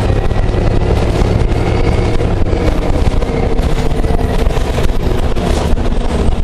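Orion VII low-floor diesel-electric hybrid transit bus running, a loud continuous engine and drivetrain drone mixed with road and wind noise, its low hum shifting in pitch as it goes.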